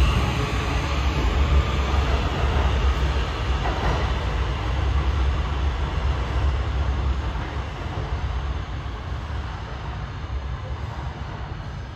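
New York City Subway R160 train running on the track with a steady low rumble. The rumble fades over the second half as the train moves away.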